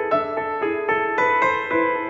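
Background piano music: a gentle melody of sustained notes that change every fraction of a second.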